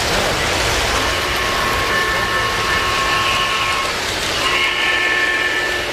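O-gauge model steam locomotive's onboard sound system blowing its chime whistle in two long blasts, the first about three seconds long, the second starting about four and a half seconds in. Under them runs the steady rumble of the train rolling over three-rail track.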